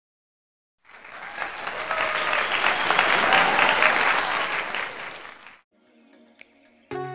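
Crowd applauding, swelling and then fading over about five seconds; music comes back in near the end.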